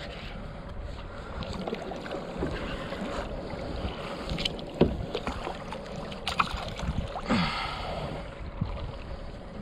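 Water and wind noise around a fishing kayak, with scattered small knocks and clicks.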